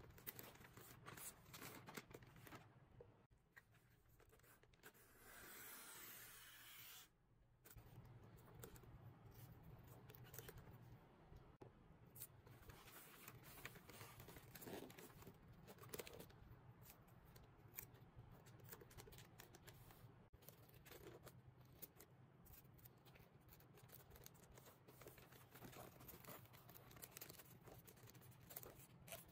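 Faint rustling and crinkling of glossy wrapping paper being folded and pressed around a gift box, with scattered small clicks and taps. About five seconds in comes a steadier swish lasting around two seconds.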